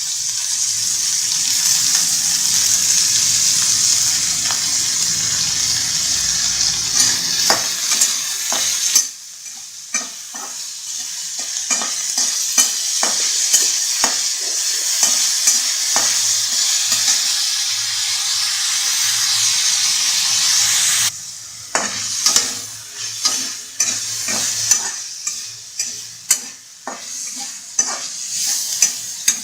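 Sliced onions frying in hot oil in a kadai, sizzling steadily while a spatula scrapes and taps against the pan as they are stirred. The sizzle drops away suddenly twice, about a third and about two-thirds of the way through, leaving mostly the scraping.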